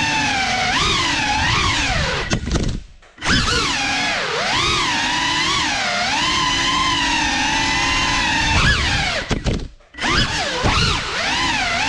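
Whine of the GEPRC Cinelog 35's four brushless motors and ducted propellers, its pitch rising and falling with the throttle. The sound drops away briefly twice, near 3 s in and near 10 s in.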